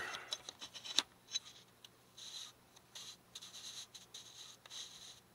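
Small handling noises on a hobby workbench: a sharp click about a second in, then four short, soft scratching sounds.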